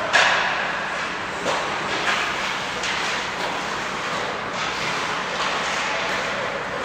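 Ice hockey game sounds in a rink: a sharp knock just after the start, then a steady hiss of rink noise with several fainter knocks from sticks and puck.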